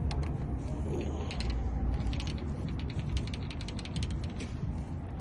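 Clusters of small metallic clicks and rattles from lock hardware and tools being handled, over a low steady rumble.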